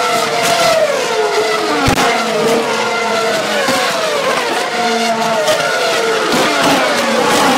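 Formula One cars with 2.4-litre V8 engines passing at high revs in quick succession, each engine note falling in pitch as the car goes by. A brief low thump about two seconds in.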